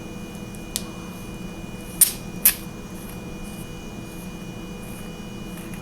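Light metallic clicks from handling the head of a stainless-steel flashlight: a faint click about a second in, then two sharper clicks half a second apart about two seconds in, over a steady low hum.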